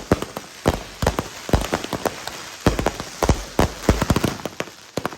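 Fireworks and firecrackers crackling and popping: many sharp cracks in quick, irregular succession, several a second.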